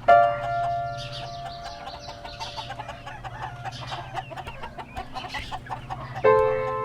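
Chickens clucking, over background music: a held chord struck at the start and fading away, a second chord struck near the end, and a low steady note underneath.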